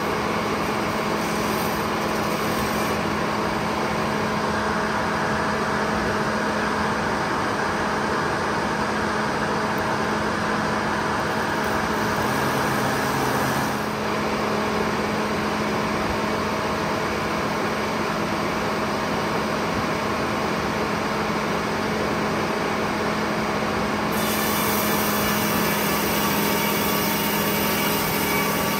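Lane No. 1 sawmill running steadily with its saw cutting a large pine log, a constant hum under broad sawing noise; the sound turns brighter and slightly louder about 24 seconds in.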